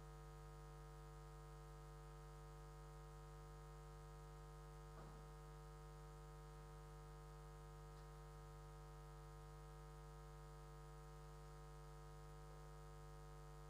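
Near silence: a faint, steady electrical hum with several overtones.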